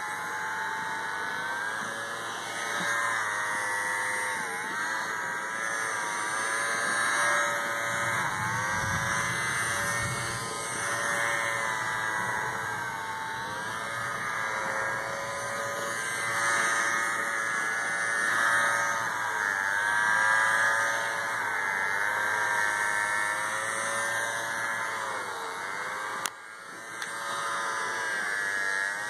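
Shed Pal cordless handheld pet-hair vacuum running as it is drawn through a cat's fur: a steady motor whine whose pitch dips and recovers several times under load. The sound drops out briefly near the end.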